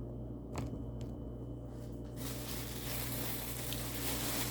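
Handling noise: two light clicks, then from about two seconds in a steady rustling hiss over a low hum.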